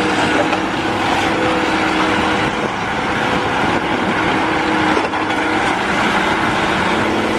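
Heavy eight-wheel dump truck's diesel engine running as the truck drives slowly over dirt: a steady, noisy drone with a couple of held engine tones.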